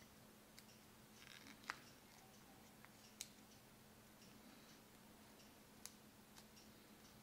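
Faint crinkles and a handful of sharp ticks of origami paper being creased and pressed by hand, the loudest snap a little under two seconds in, over a low steady hum.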